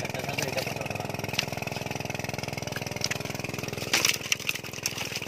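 A small engine running steadily at idle, an even, fast-pulsing drone, with a few sharp knocks about four seconds in.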